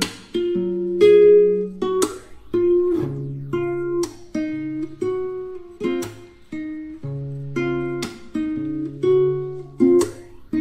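Background instrumental music: a plucked string instrument picking a melody of separate notes that ring and fade, a new note every half second or so.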